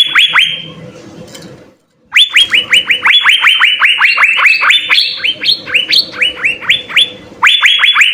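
Asian fairy-bluebird (cucak biru) singing: rapid runs of sharp downslurred whistled notes, several a second. They come in three bursts separated by short pauses, the middle one the longest.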